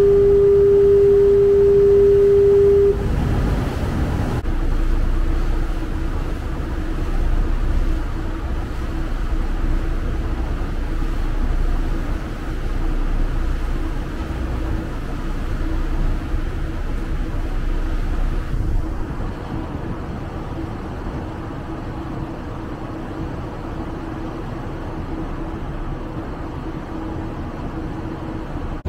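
A ship's horn holds one long steady note that stops about three seconds in. It leaves the low, steady rumble of the ferry's engines.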